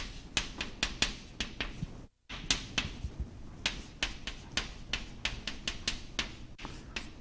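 Chalk writing on a chalkboard: an irregular run of sharp taps and short scratches, a few a second, as letters are written.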